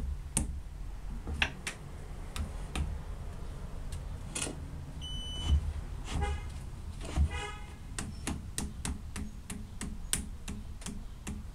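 Table saw rip fence being set by hand: scattered clicks and knocks of the metal fence and its lock handle, with two short pitched squeaks about six and seven seconds in and a brief high beep about five seconds in.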